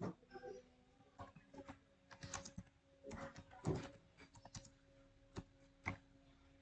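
Computer keyboard keystrokes: a run of uneven, light taps as a short line of text is typed, over a faint steady hum.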